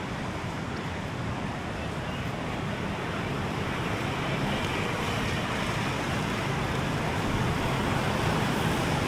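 Steady outdoor noise of a beachfront, with road traffic and surf blending into one even wash that swells a little about halfway through.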